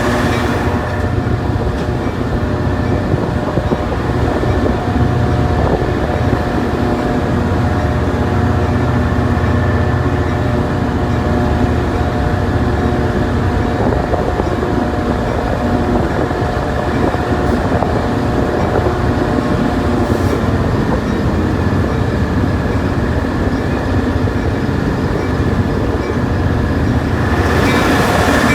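A train running past at close range: a steady, loud rumble of wheels and cars on the rails, with a few faint steady tones above it.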